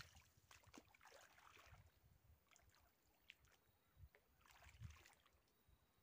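Near silence: faint outdoor background with a few soft rustles and low thumps.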